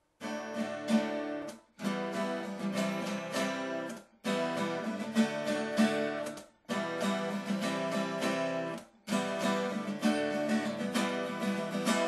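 Acoustic guitar strumming chords in phrases, each cut off by a short stop, four times, before the strumming carries on.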